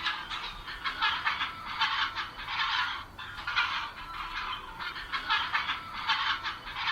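Many young poultry chicks peeping at once, a dense chorus of short, high-pitched peeps.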